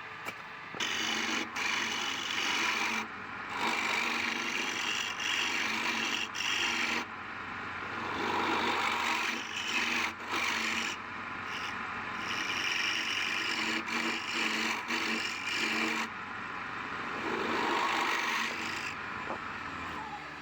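Palm wood being worked on a wood lathe, a rasping, scraping sound in repeated passes with short breaks between them.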